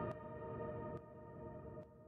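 Soft background music: a sustained chord of steady tones fading away, growing quieter toward the end.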